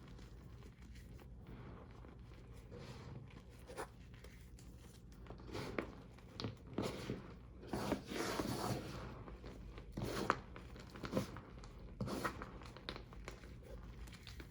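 Reformed gym chalk being crushed, with irregular crunches and crumbling that start softly and grow denser about halfway through. The chalk was not dried all the way, so it crunches rather than falling to powder.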